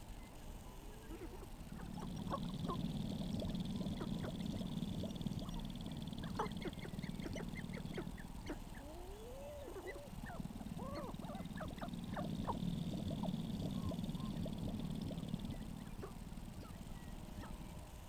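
Sharp-tailed grouse on a lek, calling in many short clucks and cackles mixed with some rising and arching whine-like notes. Twice, a low droning hum lasting several seconds rises and falls under the calls.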